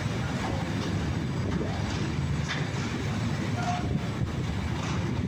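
Freight train wagons rolling past on the station tracks: a steady rumble of wheels on rail, with a few faint clicks as wheels cross rail joints.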